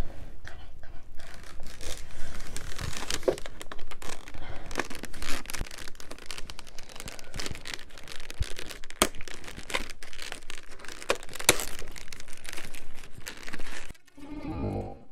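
Belly sounds of digestion picked up close to the skin: continuous crackling and clicking, with rubbing and rustling on the microphone. Near the end comes a short low gurgle.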